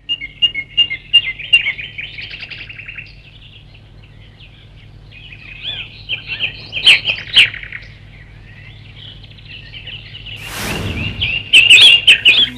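Birds chirping and twittering in bursts of short calls and trills, with a brief rushing swell of noise about ten seconds in.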